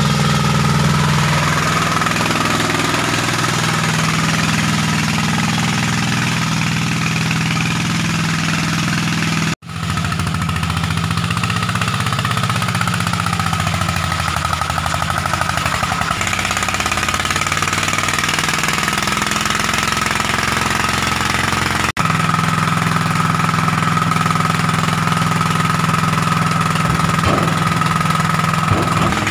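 Small engine of a tracked mini crawler dumper running steadily under load, with two brief breaks. Near the end a faint rising whine comes in as the hydraulic tipping bed lifts.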